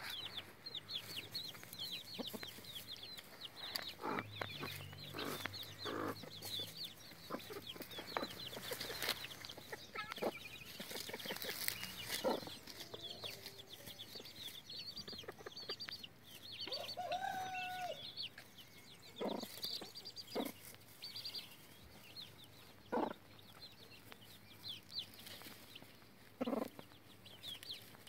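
Chicks peeping in a steady stream of short, high cheeps, while a mother hen clucks now and then, with one longer drawn-out call midway.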